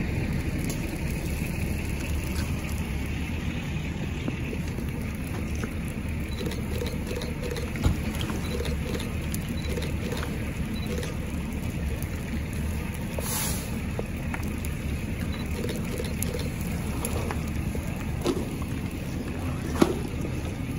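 A fully involved Range Rover burning: the fire crackles and pops, with two sharper pops about eight seconds in and near the end, over a steady low rumble.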